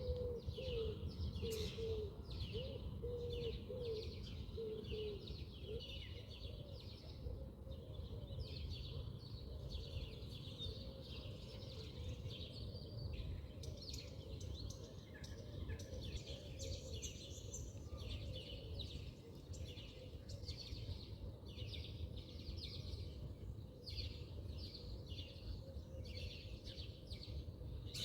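Small birds chirping busily and continuously over a steady low rumble, with a lower wavering call in the first few seconds.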